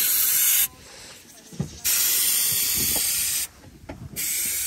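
Air hissing out of a Jeep's off-road tire through the valve in three bursts of about a second and a half, each starting and stopping abruptly: the tire being aired down for the trail.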